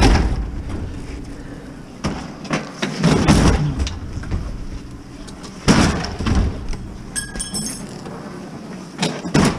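Heavy steel scrap being shifted and loaded into a packed vehicle: several separate clanks and thuds, with a brief ringing metallic clink about seven seconds in.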